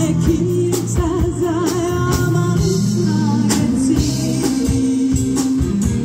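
Live band playing through a PA system: a woman singing into a microphone, her voice wavering with vibrato, over electric guitars, bass and a drum kit keeping a steady beat.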